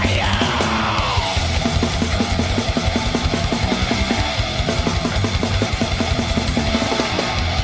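Old-school thrash metal recording: distorted band with fast drumming, and a falling pitch sweep in the first second.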